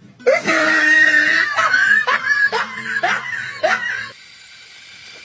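A high-pitched voice shrieking in a string of short cries that rise in pitch, about two a second, breaking off about four seconds in.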